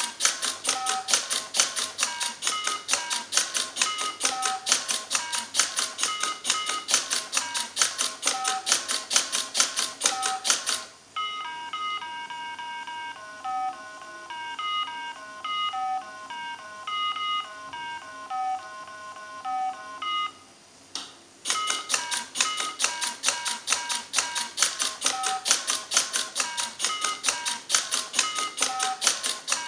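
A robot's button-pressing mechanism clicks rapidly and evenly, about five clicks a second, while a mini Simon electronic memory game sounds its short beeps at a few fixed pitches. For about ten seconds in the middle the clicking stops and only the game's run of beeps plays, then the clicking and beeps resume.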